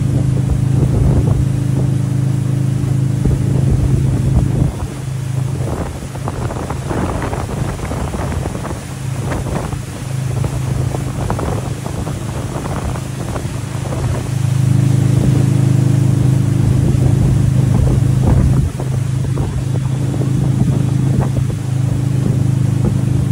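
Wakeboard boat's engine running steadily at towing speed, a low hum, mixed with wind buffeting the microphone and the churning wake. About five seconds in the hum fades behind gusty wind noise for several seconds, then comes back strongly.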